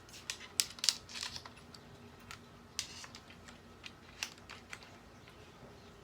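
Mosin-Nagant rifle parts being handled and fitted together during reassembly: irregular light clicks and taps, most of them in the first few seconds, thinning out after about four and a half seconds.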